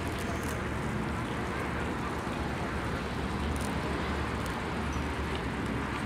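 Steady rushing outdoor background noise, with a few faint clicks.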